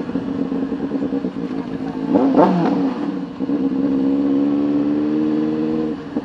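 Benelli TNT 600i's inline-four engine, fitted with a Toce aftermarket exhaust, running at low road speed. About two seconds in the revs rise and fall briefly, then it holds steady, and the level drops for a moment near the end.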